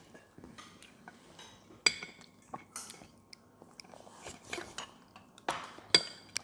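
Metal spoon clinking and scraping against a plate while children eat: a few sharp clinks with a short ring, the loudest about two seconds in and again near the end, with soft chewing between.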